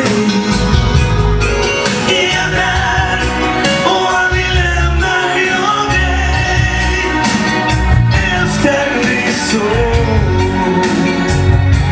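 Live pop music: a male singer with a band, drums and bass under the vocal.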